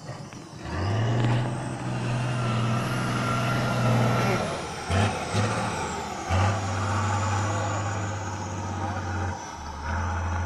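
Tatra trial truck's diesel engine pulling hard at high, steady revs under load over rough ground. The throttle drops off briefly about halfway through and again near the end.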